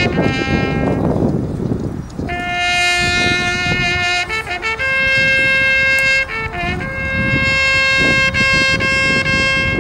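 Solo trumpet sounding a ceremonial call: a few short notes, then long held notes linked by quick ornamented turns.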